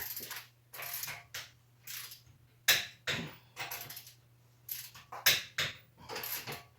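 Click-type torque wrench tightening wheel lug nuts, heard as a string of irregular short clicks and rasps.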